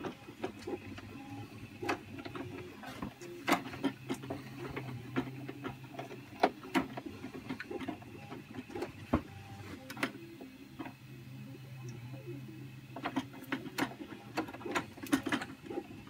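Short self-tapping screws being driven by hand with a screwdriver into 3D-printed plastic, with irregular clicks and creaks of the tool and parts, in clusters.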